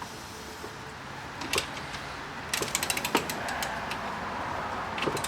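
Mechanical clicking from hand tools at work on the car: a few separate clicks, then a quick run of ratchet-like clicks about two and a half seconds in, followed by a steady hiss.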